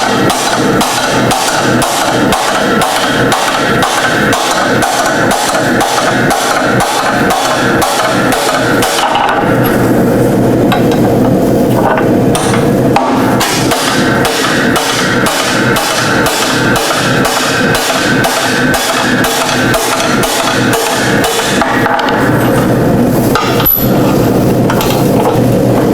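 Hammer striking a hot solid steel bar, about 1 inch by 3/4 inch, in rapid even blows, about three a second, over a continuous steady noise.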